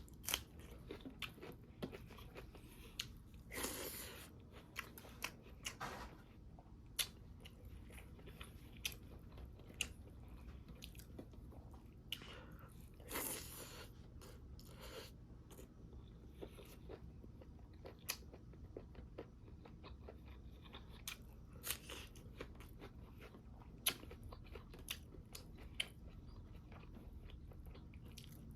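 Close-up chewing and biting of a mukbang meal of pork cooked with crunchy bone, with rice and greens: scattered short crunches and clicks, with two longer crunching bursts, about four seconds in and again about thirteen seconds in.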